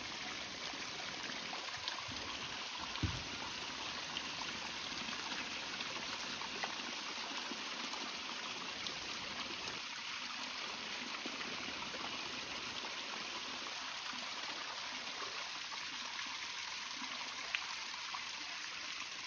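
Small pond fountain running, its water splashing and trickling steadily, with a faint tick or two.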